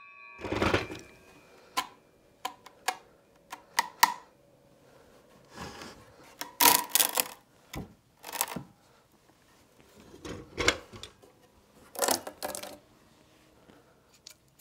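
Cut pine boards being handled and set down on a wooden step: scattered knocks and clatters of wood on wood, with a few short scraping slides.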